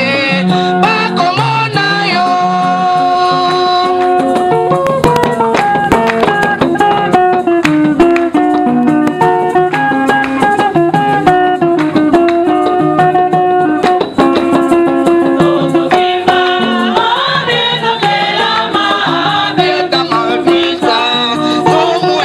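A choir singing a song with rattles and drums keeping the beat.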